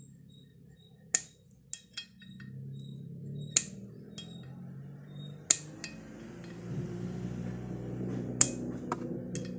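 Sharp metallic clinks of hand tools and parts knocking against metal during a motorcycle engine teardown, about eight separate strikes at irregular intervals, over a low background hum.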